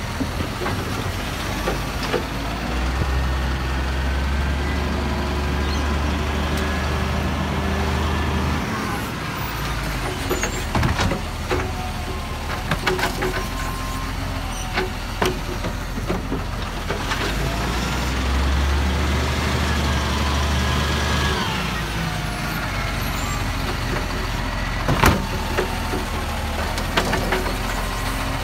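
Automated side-loading garbage truck running, its engine rising in revs and holding for several seconds, twice, to drive the hydraulic arm that lifts wheelie bins and tips them into the hopper. Sharp knocks and bangs of the bins against the arm and hopper come in between.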